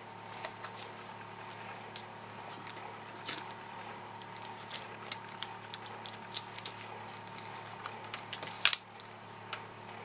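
Light, scattered clicks and taps of fingers handling a thin screen video cable and the plastic screen lid of a Toshiba Satellite L505D laptop as the cable is routed, with a sharper double click near the end. A faint steady hum runs underneath.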